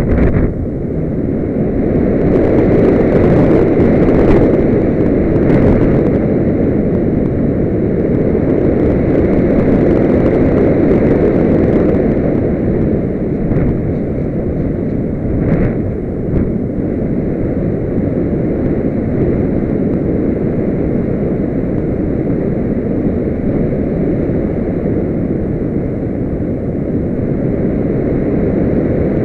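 Airflow rushing over the onboard camera's microphone on a Solius RC glider in flight: a steady windy rush, a little louder in the first half, with no motor whine heard.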